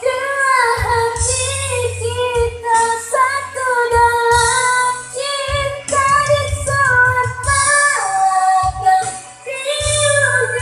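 A song with a high-pitched female singing voice over a musical backing with bass notes.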